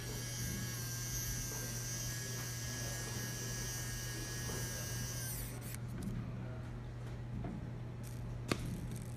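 Electric precision screwdriver running with a steady high whine as it drives a tiny screw into a drone gimbal camera's metal back panel, stopping abruptly about five seconds in. A single sharp click near the end.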